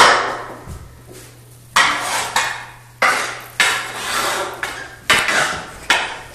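Hockey stick knocking on a bare concrete floor: about eight sharp clacks at uneven intervals, each ringing on in the echo of the empty room.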